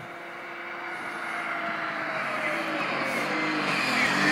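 BMW E36 M3's straight-six engine running hard as the car approaches at speed, the engine note growing steadily louder.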